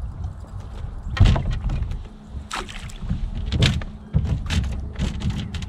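Irregular splashes and knocks at the bow of a bass boat while an angler leans over to the water, several sharp bursts in the second half, over a steady low hum.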